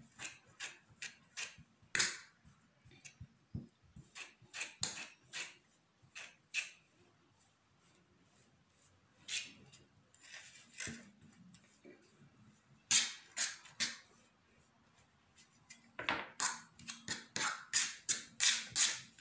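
Kitchen utensils clicking and knocking against a bowl or pan in a string of irregular sharp taps, with a busier run of taps near the end.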